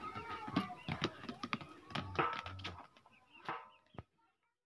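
Irregular light knocks and scuffs as a young calf moves and hops about on its tether, ending with one sharp click about four seconds in.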